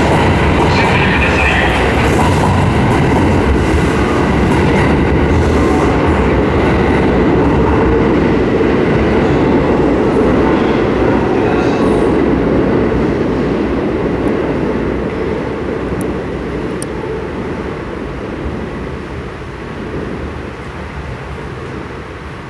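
Kintetsu 22600 series Ace limited-express electric train departing an underground platform: its running noise passes close by, then fades steadily over the second half as the train goes off into the tunnel.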